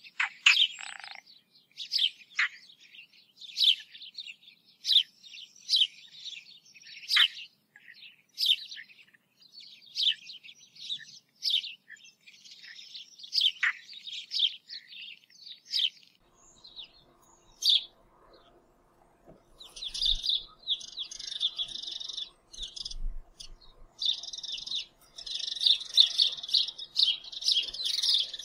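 Birdsong: short, high bird chirps repeating every half second or so, turning into denser, near-continuous chirping about two-thirds of the way through.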